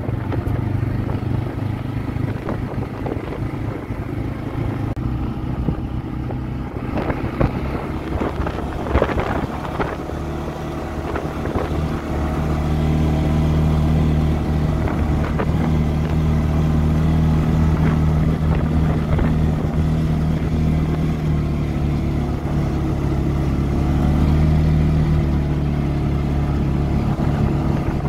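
ATV engine running under way, with a stretch of knocks and rattles about seven to ten seconds in. From about twelve seconds the engine note gets louder and holds steady.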